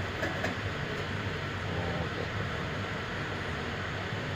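Euro 3 engine running steadily at idle, with the engine knock that is being shown.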